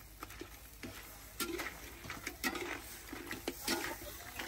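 Light clatter and scattered sharp clicks, with faint voices in the background.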